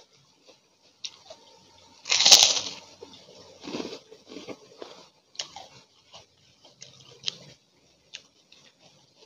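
Kerupuk cracker and raw cucumber being bitten and chewed up close: one loud crunching bite about two seconds in, then chewing with short, scattered crackling crunches.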